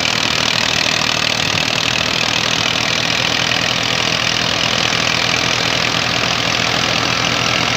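Massey Ferguson 240's three-cylinder diesel engine running steadily under load, driving a wheat thresher whose whirring hiss runs mixed in with the engine.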